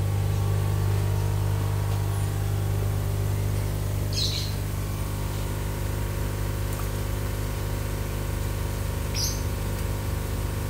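Electric linear diaphragm air pumps (LP-series aquarium blowers) running with a steady low hum, supplying air to the biofloc tank aeration. A bird chirps briefly twice, about four and nine seconds in.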